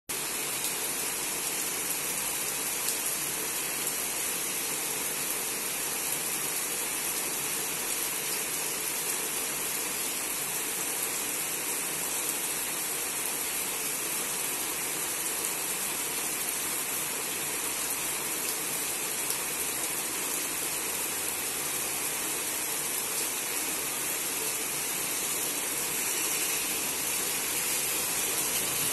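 Heavy rain pouring steadily onto trees and leafy foliage as an even, dense hiss, growing a little louder near the end.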